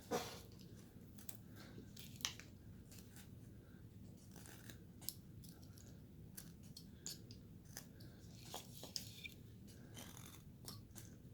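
Carving blade slicing into basswood in short, irregular cuts: faint crisp snicks, with a sharper one at the very start and another about two seconds in.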